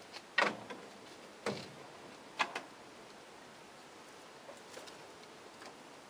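Budgerigars moving about on wooden perches: three sharp taps or clicks about a second apart, then a few faint ticks near the end.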